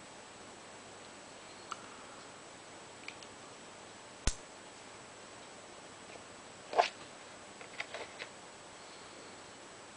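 A few light clicks and taps from a folding knife being handled, the sharpest about four seconds in and a small cluster near the end, over a faint steady hiss.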